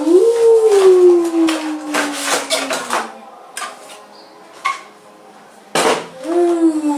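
Packaging handled with clicks and rustles as a plastic display case is slid out of a cardboard box. Over it, the loudest sound is a long howl-like tone that rises at the start and then slowly falls for about three seconds, with a second, shorter falling glide near the end.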